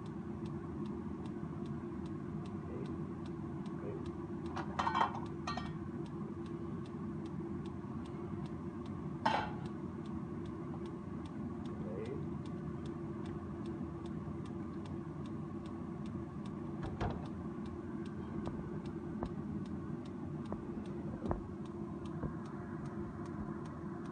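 A steady low rumble of a kitchen stove heating a pan, with a faint regular ticking throughout. Brief clinks of cookware come about 5 and 9 seconds in.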